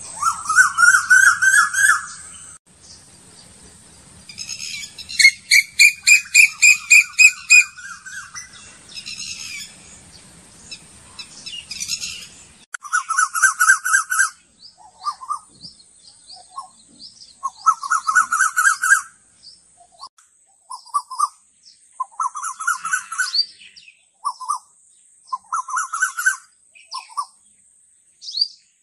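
A bird singing: loud, rapid trilled phrases of repeated chirps, each lasting a second or two, coming again and again with short pauses and scattered single notes between them.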